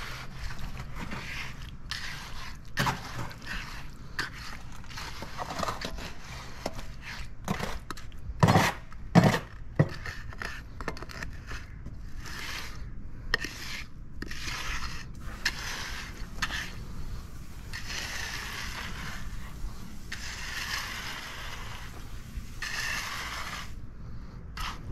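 Hand float scraping back and forth across wet concrete in repeated strokes as the surface of a footer is floated smooth. A few sharp knocks come about eight to nine seconds in.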